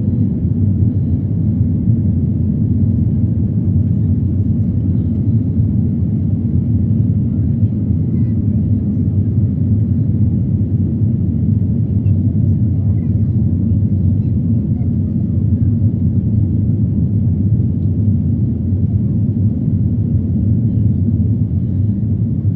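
Airliner cabin noise during takeoff: a steady low rumble of the jet engines and airflow.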